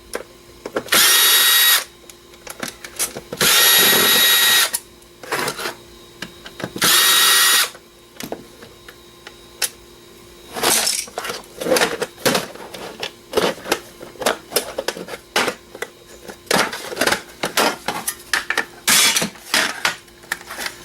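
Power drill running in three short bursts of a second or so each while backing screws out of a computer DVD drive. From about halfway on come many quick metallic clicks and rattles as the drive's parts are pulled apart and handled.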